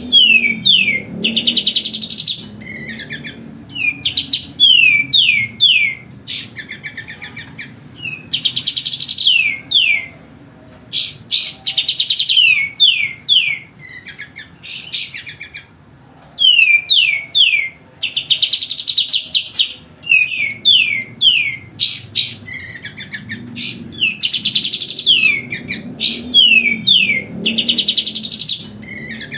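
Sooty-headed bulbul singing loudly in rapid bursts of quick, sharply falling whistled notes, broken by short pauses, over a faint low hum.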